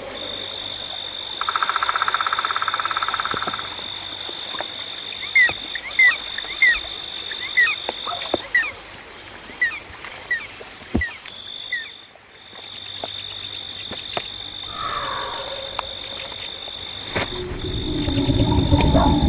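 Frogs calling at night over a steady high-pitched insect trill. One rapid pulsed call comes in about a second and a half in and lasts about two seconds, then a run of short chirping calls follows. A louder low rumbling comes in near the end.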